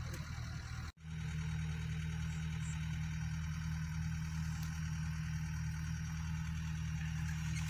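Safari jeep's engine idling with a steady low hum, broken by a brief dropout about a second in.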